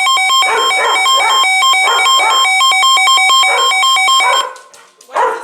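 Emergency Alert System alert tones: loud electronic tones near 1 kHz switching rapidly back and forth in a choppy beeping pattern, cutting off abruptly about four and a half seconds in, ahead of the next severe thunderstorm warning.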